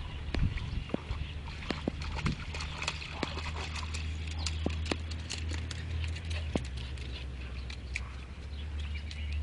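A Rough Collie puppy wading out of shallow pond water onto a stony bank: scattered splashes and the clatter of steps on rocks and pebbles, over a steady low rumble.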